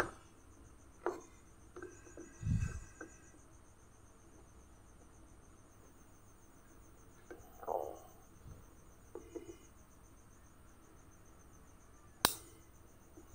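Crickets chirping steadily and faintly, with a few soft knocks and clicks from handling the emergency lamp and its clip leads, a low thump about two and a half seconds in and a sharp click near the end.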